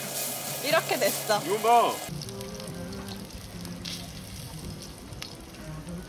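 Tomahawk steak sizzling and spitting in hot oil in a black iron pan over a gas burner. Within the first two seconds, a few short gliding tones, an edited-in comic sound effect, are the loudest sound.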